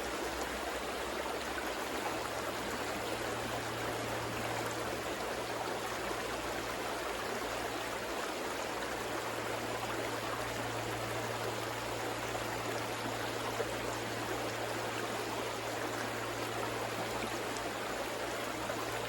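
River water flowing steadily over rocks, an even rushing and gurgling with a low steady hum beneath it.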